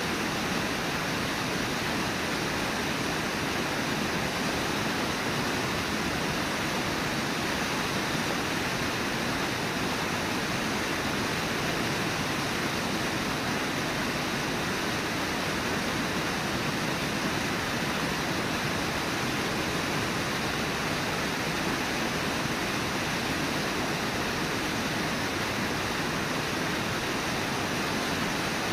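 Steady rushing of the Brooks River's flowing water, an even noise at a constant level.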